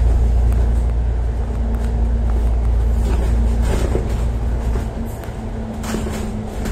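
Steady low rumble of a moving vehicle heard from inside, with a constant low hum and a few light rattles.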